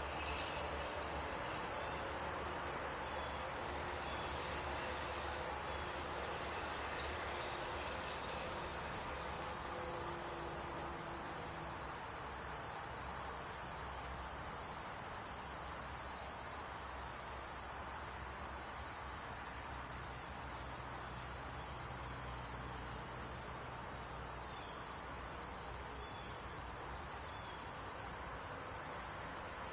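Steady, high-pitched chorus of insects in late-summer woodland, holding unbroken throughout.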